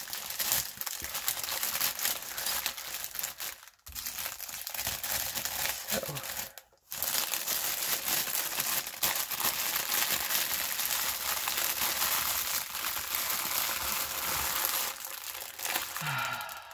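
Clear plastic packaging (a bag of diamond-painting drill packets and the canvas's plastic cover film) crinkling and rustling as it is handled, with two brief pauses about four and seven seconds in.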